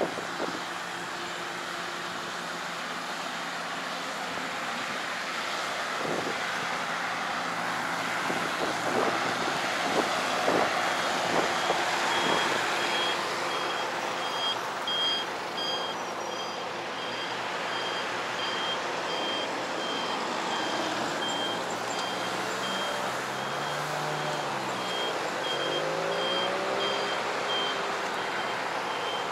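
Road traffic going by, with a high electronic beep that starts about a third of the way in and repeats evenly, a little under twice a second. Near the end a passing engine's note rises and falls.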